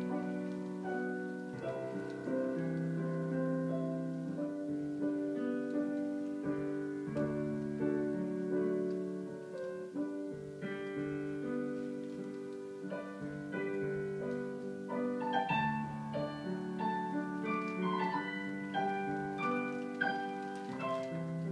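Piano music: a slow, gentle piece of sustained notes and chords that change every second or two.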